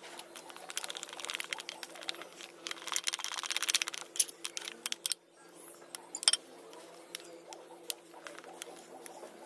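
Steel spoon stirring a thick flour-and-water batter in a bowl: quick wet slaps and clicks of the spoon against the bowl, busiest in the first four seconds and sparser after a brief pause. The batter is being beaten smooth and free of lumps.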